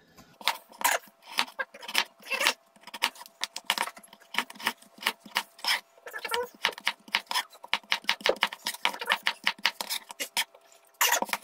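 Kitchen knife chopping raw potatoes into chips on a plastic chopping board: a fast, irregular run of sharp knocks as the blade cuts through and hits the board, with a short pause near the end.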